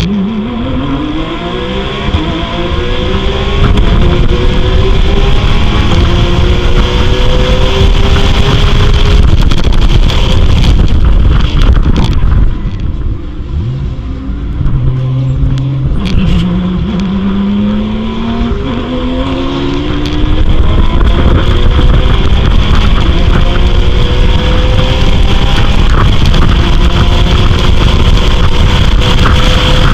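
Porsche 911 GT3 Cup race car's flat-six engine pulling hard through the gears: the pitch climbs and drops back at each upshift. About twelve seconds in it backs off to a lower, quieter note for a few seconds, then climbs again and runs at high revs.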